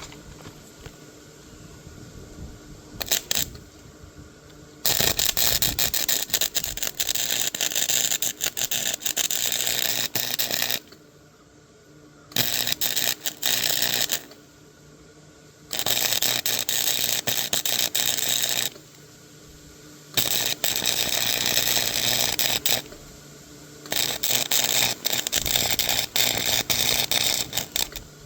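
Hand ratchet wrench being worked in bursts of rapid clicking, several seconds each with short pauses between.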